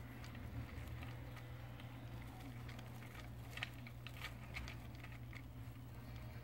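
Russian dwarf hamster chewing food from its bowl: a run of small crackly ticks about three to five seconds in, over a faint steady low hum.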